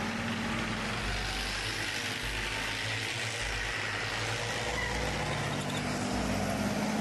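Tracked main battle tanks on the move: engine running steadily together with the noise of the tracks over the ground.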